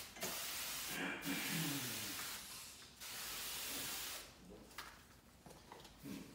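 Spray wand on a hose from a pressurized keg tank hissing as it mists solution onto a large pane of window glass, wetting it for film. It comes in three bursts: two close together, then a third about three seconds in.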